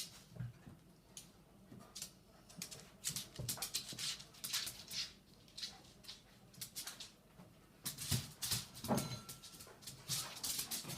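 A cat and a dog scuffling: an irregular run of short scratchy scrapes and patters, busiest near the end.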